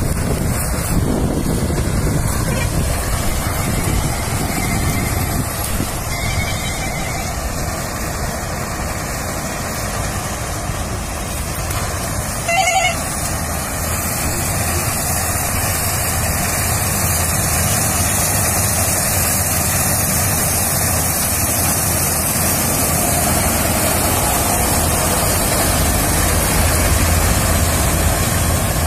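KS 9300 combine harvester running steadily while cutting wheat: a continuous, even machine noise from its engine and threshing works. A brief pitched sound cuts in about 13 seconds in.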